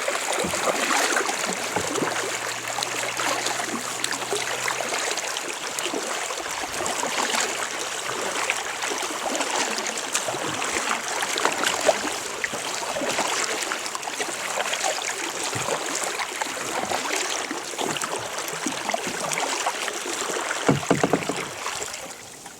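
Kayak being paddled: steady splashing and dripping of water from the paddle blades and around the hull, which cuts off sharply near the end.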